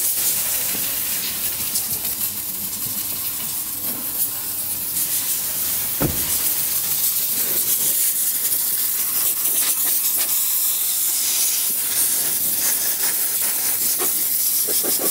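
Compressed-air blow gun hissing steadily as it blows a part dry, with one brief knock about six seconds in.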